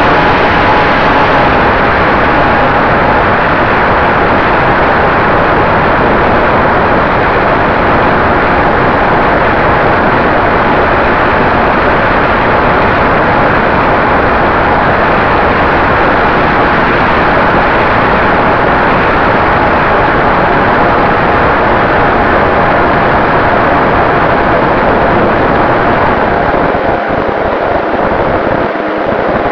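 Radio-controlled model Cessna 188 in flight, heard from its onboard camera: a loud, steady rush of wind and propeller noise with a faint steady whine running through it, easing slightly near the end.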